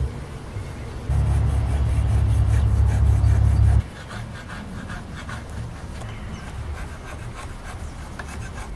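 Rubbing and scraping on the wooden rocking chair as old finish softened by Citristrip stripping gel is worked off, in short repeated strokes. A loud low rumble covers the stretch from about a second in to nearly four seconds in.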